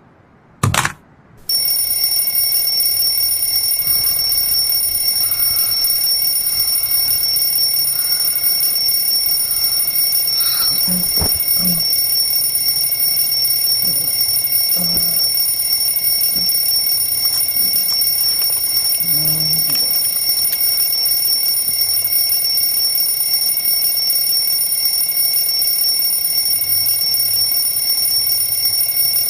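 Alarm clock ringing without a break in a steady, high-pitched tone. It starts about a second and a half in, just after a short click.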